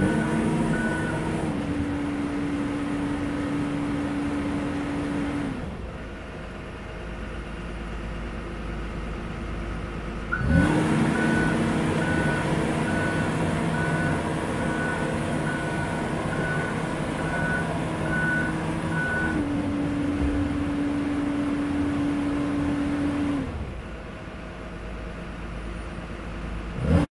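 Komatsu tracked excavator's diesel engine and hydraulics running, dropping to a quieter note around six seconds in and again near the end. About ten seconds in the engine comes up sharply under load and the travel alarm beeps at an even pace while the tracks move, stopping near nineteen seconds.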